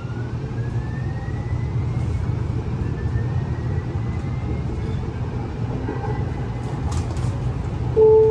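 Streetcar ride heard from inside the car: a steady low rumble of the wheels on the rails, with a faint electric whine rising in pitch over the first few seconds as it picks up speed. There are a few sharp clicks, and near the end the first note of the onboard announcement chime starts.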